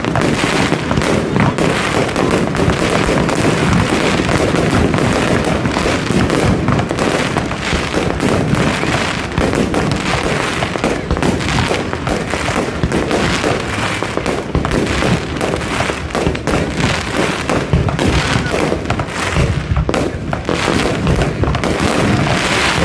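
Fireworks display: a dense, unbroken barrage of bangs and crackling shells, loud all the way.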